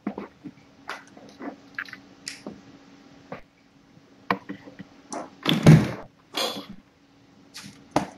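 Scattered knocks and clicks over a steady low hum, with one heavier thump about five and a half seconds in.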